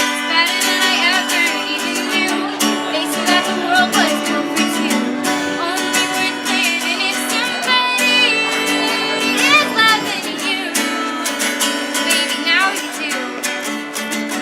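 Music: an acoustic guitar strummed with a voice singing over it.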